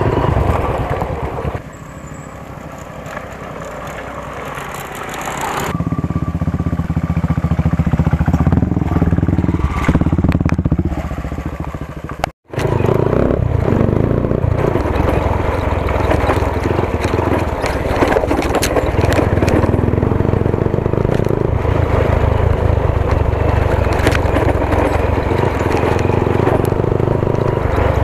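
Hero CBZ Xtreme's single-cylinder engine running as the motorcycle is ridden over a rough dirt track, with clattering and scraping from the bumpy ground. The engine goes quieter about two seconds in and builds up again a few seconds later. The sound cuts out for an instant near the middle.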